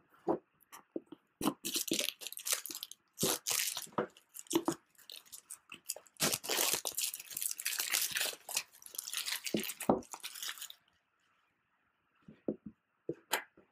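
Plastic shrink-wrap being torn and peeled off a cardboard box, crackling and crinkling in repeated bursts, then stopping; a few light taps near the end.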